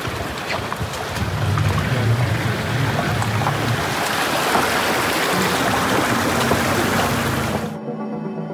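Loud steady rushing noise with a low rumble that rises and falls, cut off suddenly near the end by background music.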